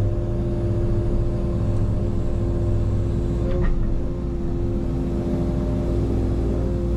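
Engine of a heavy land-clearing machine running steadily under load, with a brief sharp crack about three and a half seconds in.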